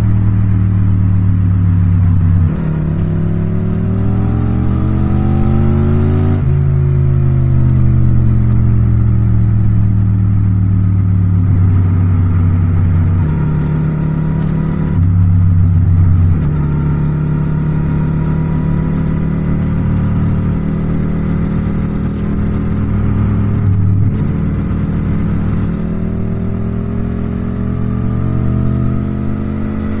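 Yamaha MT-07's 689 cc parallel-twin engine running under way. The engine note rises from about three seconds in to six seconds in, then drops suddenly, runs steady through the middle, and climbs again near the end.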